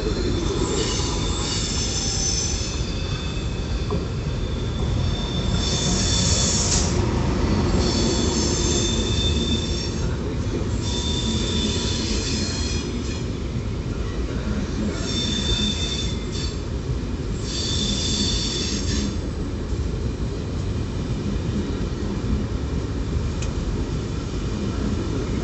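FS E.464 electric locomotive and its regional train rolling in on the station tracks, with a steady rumble of wheels on rail. Over it come repeated high-pitched wheel squeals in several tones, which die away after about nineteen seconds.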